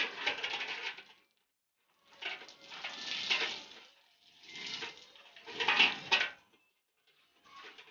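Jets of milk squirting from a cow's teats into a steel bucket during hand milking, coming in spells of about a second with short pauses between.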